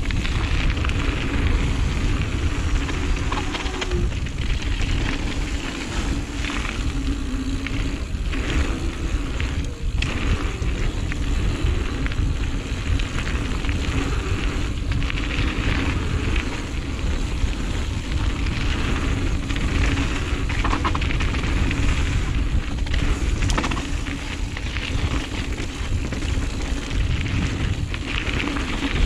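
Giant Reign mountain bike descending a flow trail at speed: steady wind rush on the camera microphone and tyre rumble, with frequent knocks and rattles of chain and frame over the bumps.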